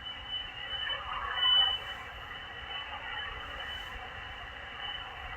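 Single-sideband amateur radio received on an SDR receiver: steady band hiss and static in the narrow radio passband, with a faint, garbled voice coming through about a second in, a weak station transmitting between the net's exchanges.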